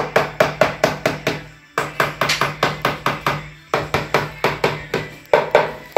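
Rapid tapping on a ceramic wall tile, about five sharp knocks a second in runs of a second or two with brief pauses, as the tile is tapped to bed it into the mortar.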